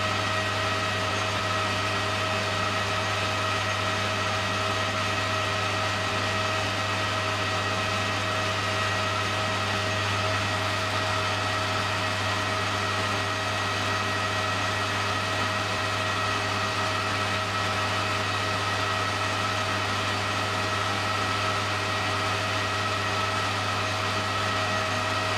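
Small metal lathe running at a steady speed with an even whine, while an aluminium model-engine spinner is turned freehand and then polished on the spinning spindle.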